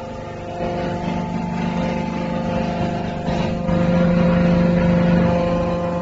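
Hydraulic power unit of a waste paper baler running: a steady motor-and-pump hum with several steady tones. It grows louder about three and a half seconds in.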